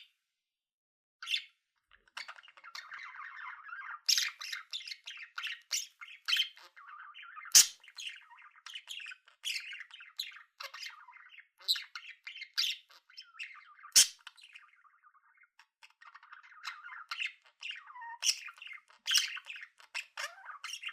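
Budgerigar warbling: a long, rapid, chattering song of quick chirps and sharp squawks, starting after a quiet second or two and pausing briefly about two-thirds of the way through.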